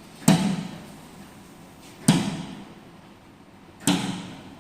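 Locker compartment doors on a vending machine springing open one after another as their electric locks release: three sharp knocks about two seconds apart, each dying away quickly.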